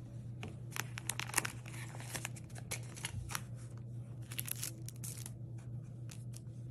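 Plastic packaging crinkling and rustling as it is handled, a run of quick crackles that thins out near the end, over a steady low hum.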